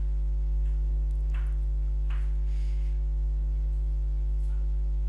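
Steady electrical mains hum, a low buzz with its overtones, with a few faint, brief rustles over it.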